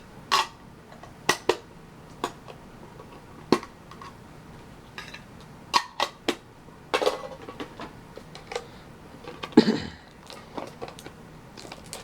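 Hands handling small metal Pokémon card mini tins and their packaging: scattered sharp clicks and taps with brief rustles, the loudest knock coming a little before the end.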